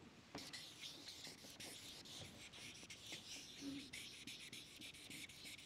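Faint, irregular scratching strokes of a marker writing Chinese calligraphy characters on a flip-chart paper pad.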